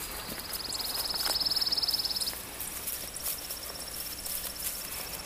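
A high, rapid trill from a wild animal, strong for about the first two seconds and then carrying on fainter and a little higher in pitch.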